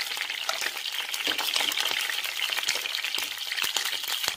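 Small whole brinjals (eggplants), slit deep, shallow-frying in hot oil in a pan: a steady sizzle full of fine crackling pops as they fry until soft.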